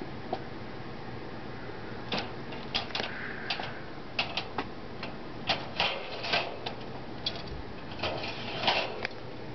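A budgerigar clambering on a wire birdcage, its claws and beak making irregular clicks and light rattles on the bars, starting about two seconds in and running in scattered bunches until near the end.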